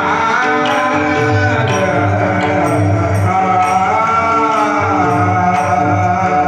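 Devotional singing with melodic accompaniment: a sustained, gliding vocal line over steady held tones, kept in time by a regular light percussive beat.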